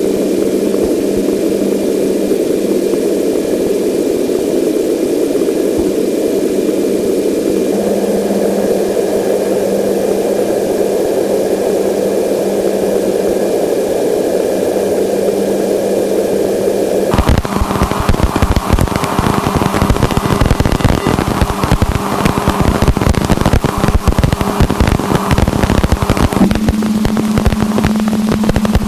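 Sonified Voyager 2 radio and plasma-wave recording of Uranus: a steady hiss with a few faint held tones, which about seventeen seconds in switches abruptly to dense crackling static.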